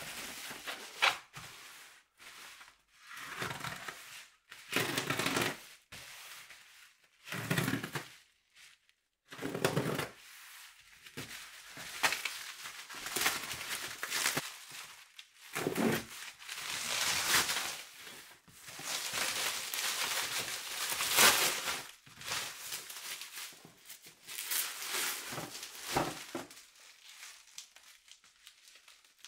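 Plastic parcel wrapping crinkling and tearing as it is pulled open by hand, in irregular rustles. A few duller bumps come from the cardboard box being handled.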